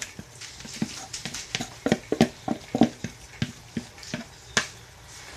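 Spoon scraping and knocking against a plastic mixing bowl as a wet ground beef, gravy and corn mixture is scooped out into a skillet: a run of irregular clicks and knocks.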